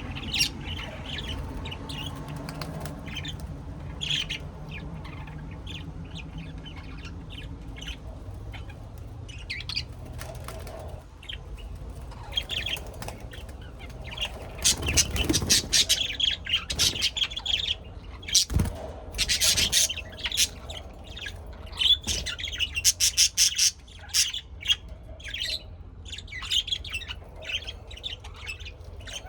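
Birds chirping and squawking in many short, sharp calls, sparse at first and then busy and loud through the second half, with a single knock partway through.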